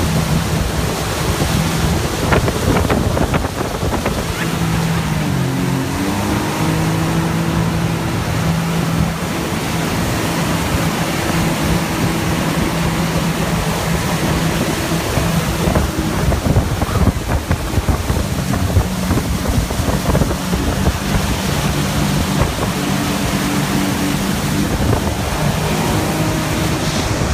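Motorboat engine running at towing speed with a steady hum that dips and recovers in pitch about five seconds in, under the constant rush of the churning wake and wind buffeting the microphone.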